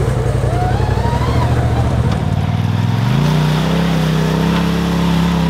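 Side-by-side UTV engine running at a steady pitch, then revving up about three seconds in and holding the higher pitch as the machine climbs a steep dirt bank.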